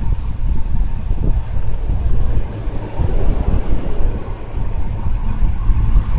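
Heavy wind buffeting on the microphone of a camera riding along on a road bike at speed, a loud, gusting low rumble that rises and falls.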